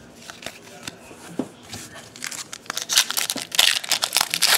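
Shiny foil wrapper of a 2012 Topps Series 2 baseball card pack crinkling and tearing as it is opened, loud and dense from about halfway in. Before that, light clicks of cards being handled.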